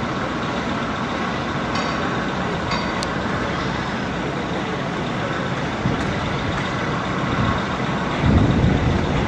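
Steady diesel engine rumble of towboats working on the river, with a brief low bump near the end.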